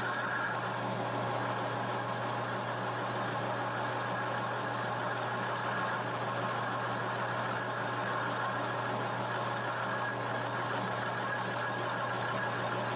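Metal lathe boring out a turbocharger compressor housing: the boring bar's insert cutting steadily inside the spinning housing, with a continuous squealing cutting noise over the lathe's running hum.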